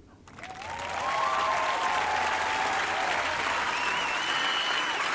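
A crowd applauding and cheering, swelling up within the first second and then holding steady, with voices rising and falling over the clapping.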